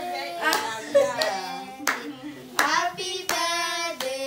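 Several voices singing together with hand claps, a sharp clap about every three-quarters of a second.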